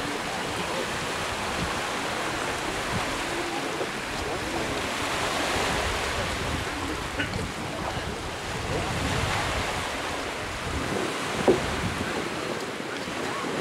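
Waves washing on the beach with wind rumbling on the microphone, a steady rushing noise. A single brief sharp sound about eleven seconds in is the loudest moment.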